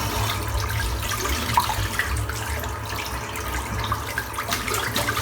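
Water running from a tap into a sink, with small splashes.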